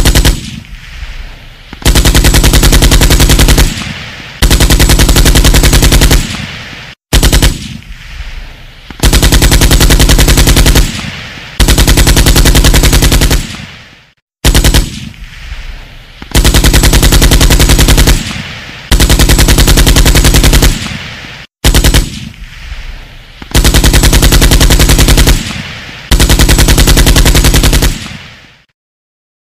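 Kalashnikov assault rifle firing on full automatic: a short burst, then two sustained bursts of about two seconds each, each trailing off into echo. The same sequence repeats four times.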